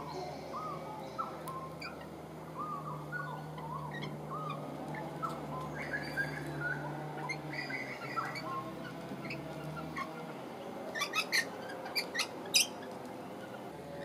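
Rainbow lorikeets calling at a feeder: quick little chirps repeat through most of it, then a run of short, shrill screeches near the end, the loudest sounds.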